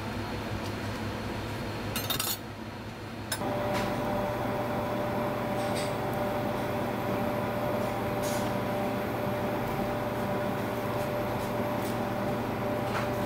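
Steady background hum of kitchen machinery, with a short clatter about two seconds in. After a brief dip the hum returns steadier, with a few faint clicks.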